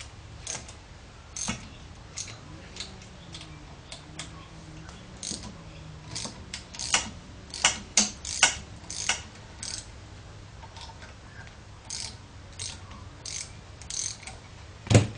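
A small 10mm socket spanner working the motor mount nuts off a mini lathe: irregular light metallic clicks and taps, coming thickest midway and again later, with a sharper knock just before the end.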